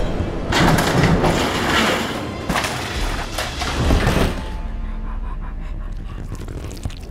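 Cartoon crash sound effects: a dense jumble of crashing, clattering and heavy thumps as furniture and paint cans fall, over music. It eases off to a quieter stretch after about four seconds.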